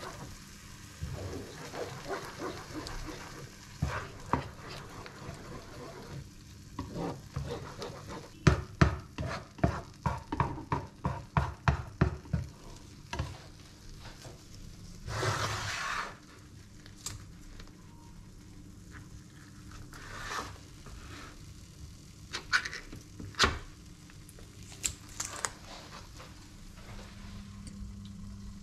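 Eggs and tomato sauce sizzling in a frying pan while a spatula stirs and scrapes through them. About 8 to 13 seconds in comes a quick run of knocks of the spatula against the pan, and later a few scattered clinks.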